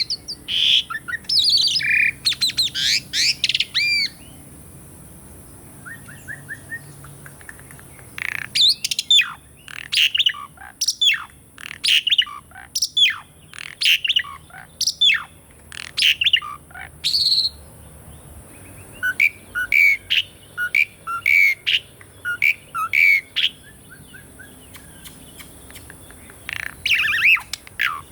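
Jalak suren (pied starling) singing: bursts of varied, sliding whistles and chirps, then a few seconds' pause, then a long run of sharp down-slurred notes about one a second, and later shorter chirps. A steady high hiss runs underneath.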